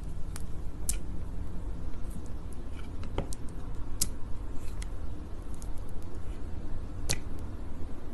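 Sticky honey ASMR sounds: sharp, irregularly spaced tacky clicks and pops over a steady low rumble.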